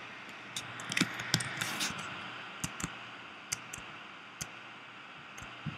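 Irregular sharp clicks of a computer keyboard and mouse being worked, about a dozen scattered singly and in pairs, over a steady faint hiss.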